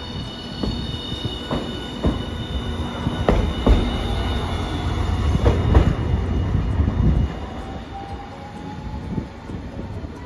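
Hiroden Green Mover LEX three-section low-floor tram passing close on street track: wheel rumble with sharp clacks over rail joints and a high thin wheel squeal. The rumble eases off about seven seconds in as the tram moves away, leaving a faint rising motor whine.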